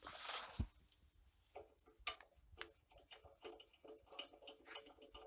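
A brief rustle and a soft knock in the first second, then faint, scattered clicks and taps as a hand reaches under the Stirling engine for the valve between its two cylinder banks.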